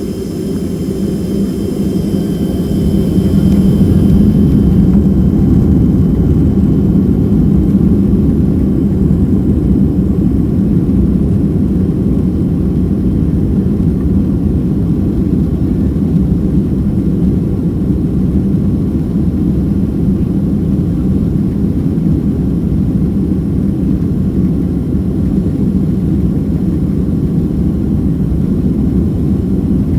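Cabin noise of a Boeing 767-300ER in flight: a steady deep rumble of the jet engines and rushing air. It swells over the first few seconds, then holds steady, while a thin high whine fades out about five seconds in.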